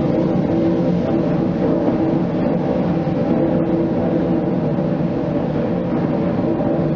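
The River Don Engine, a Davy Brothers three-cylinder reversing steam engine, running at speed: a loud, steady mechanical rumble and hum with a fast, even pulsing beat from the cylinders and crank.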